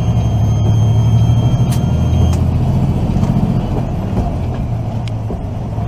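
Semi truck driving at highway speed, heard from inside the cab: a steady low drone of engine and road noise. A faint high whine stops about two seconds in, and there are a few faint clicks.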